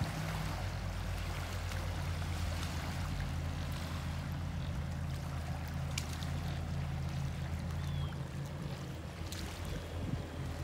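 Mini jet boat's engine and jet drive running with a steady low drone, over water lapping against the shore rocks.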